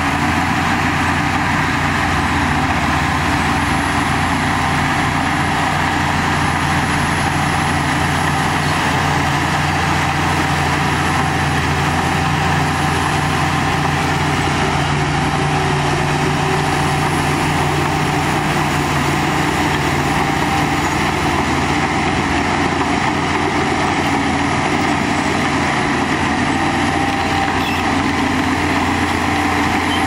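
Shantui crawler bulldozer's diesel engine running steadily as the dozer pushes a pile of soil with its blade.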